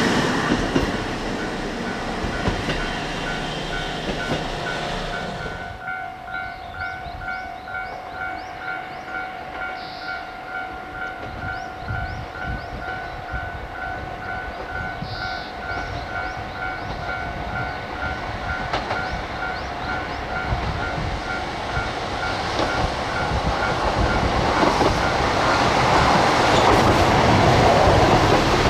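Diesel train running through the station, loud at first. From about six seconds in, a rapidly repeating ringing tone, about three rings a second, sounds over the rhythmic clatter of the wheels, and the train noise swells again near the end.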